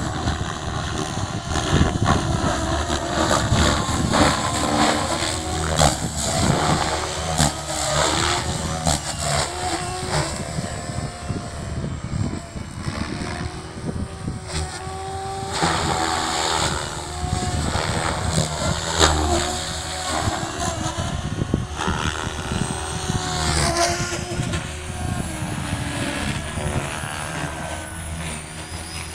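SAB Goblin 570 electric radio-controlled helicopter flying 3D aerobatics: the rotor blades and motor whine, their pitch rising and falling again and again with the manoeuvres.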